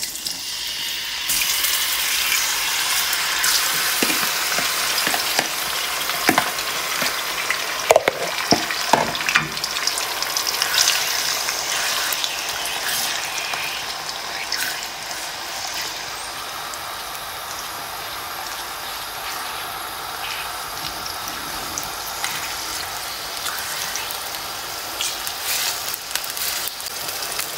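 Marinated boneless chicken pieces sizzling as they go into hot oil in a non-stick frying pan, with a few knocks and scrapes of a spatula moving them around. The sizzle is strongest in the first half and settles to a steadier, slightly quieter frying.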